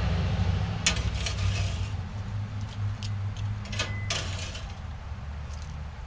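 A metal spatula scraping and clicking against a grill grate and a glass mixing bowl as roasted peppers are scooped into the bowl. There are half a dozen sharp clicks and clinks, one with a short ringing tone just before the middle, over a low steady hum that fades gradually.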